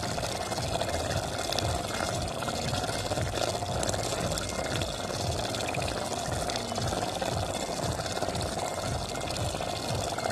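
Chicken curry bubbling steadily as it simmers in a pot.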